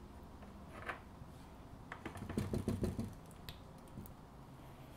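Small metallic clicks and taps as a greased gear is fitted into the gear housing of a Black & Decker circular saw, with a quick cluster of them about two to three seconds in.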